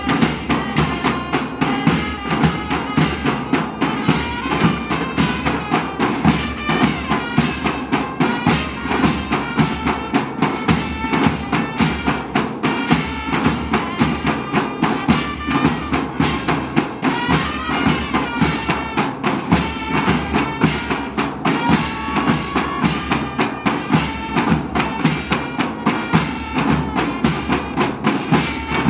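Moroccan traditional-style music with a steady, quick percussion beat under a reedy wind-instrument melody.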